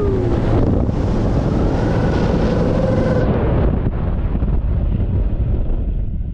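Jet ski running at speed across the water, with wind buffeting the microphone and spray rushing past the hull. A faint engine tone holds steady for a second or two partway through.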